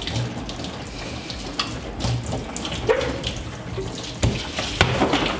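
Engine fluid pouring out of the V8 and splattering onto the shop floor in a steady stream, with a few sharp knocks partway through. It is an unplanned spill.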